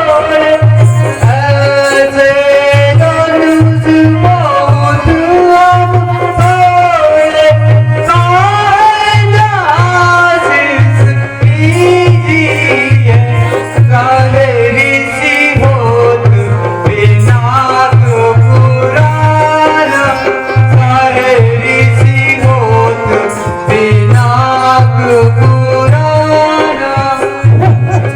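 Music: a voice singing a wavering, gliding melody over a steady hand-drum beat.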